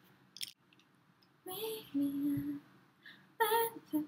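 A young woman's voice singing a few wordless notes: one held steady about two seconds in, and a sliding note near the end.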